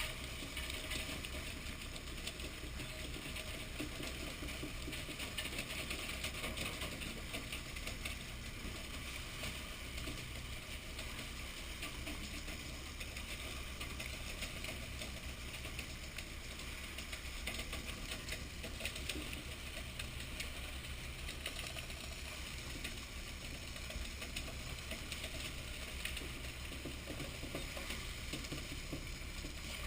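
A fishing boat's engine running steadily, a constant low hum with a fast, even ticking over it.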